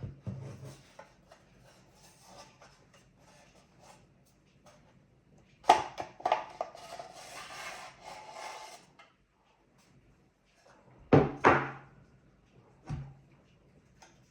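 Parts of a NAS unit being handled during a hardware upgrade. A sharp click leads into a rubbing, sliding sound that lasts about three seconds, then comes a quick pair of clicks and, shortly after, one more click.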